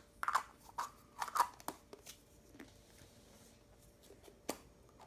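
Hands handling a plastic surprise-egg toy and its wrapping: a quick run of crackling clicks in the first two seconds, then a single click about four and a half seconds in.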